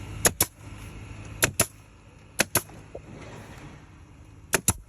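Sharp clicks in pairs, four pairs about one to two seconds apart, each pair two quick clicks in close succession.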